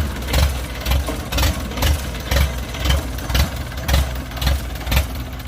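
Kubota DC-70 Plus combine harvester running, with a regular heavy thump about twice a second.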